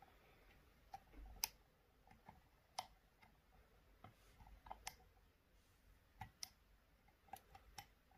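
Faint, irregular metallic clicks of a lock pick probing and setting pins inside an Assa D12 version 2 lock cylinder, about ten ticks scattered over several seconds.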